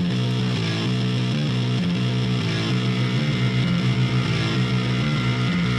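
Rock music with electric guitar, an instrumental stretch of the song with no singing.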